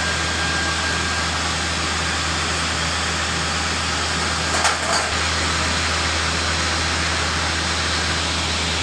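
Steady drone of running machinery with a constant low hum underneath. A brief clatter of knocks comes about four and a half seconds in.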